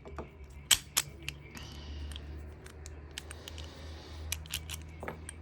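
Sharp little metal clicks and taps from a reassembled Paclock aluminium padlock being handled, two louder clicks about a second in, over a low steady hum.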